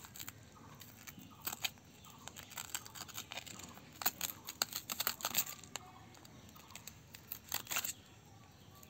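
Shattered glass screen protector crackling and snapping as a thin metal tool scrapes and pries under it to peel it off the phone screen, in several short clusters of sharp clicks.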